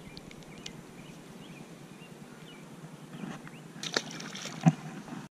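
A small sunfish thrown back into a pond hits the water with a splash, a sharp smack about four and a half seconds in, just after a lighter knock.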